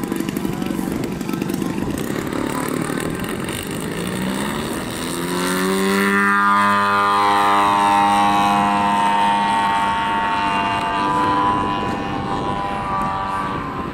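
Radio-controlled aerobatic model airplane's engine and propeller. It is at first a rushing drone, then climbs sharply in pitch about four to six seconds in as the throttle opens, and holds a loud, high, steady note while the plane hangs nose-up on its propeller.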